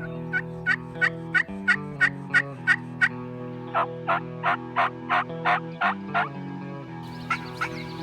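Turkey yelps in evenly spaced series, about three notes a second, the first run higher-pitched and the next run lower, over a steady music bed.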